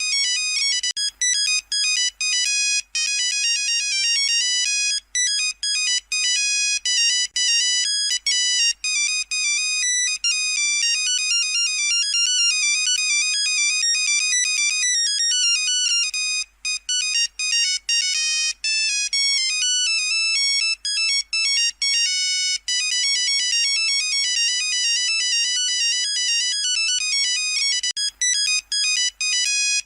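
Nokia 3310 monophonic ringtone playing a fast tune of high, beeping notes, with brief breaks between phrases.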